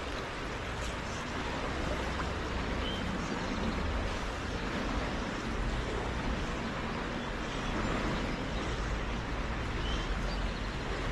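Flowing river water rushing steadily, an even noise with a low rumble underneath.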